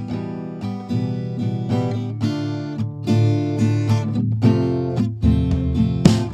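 Background music: an acoustic guitar playing a steady run of plucked notes and strums.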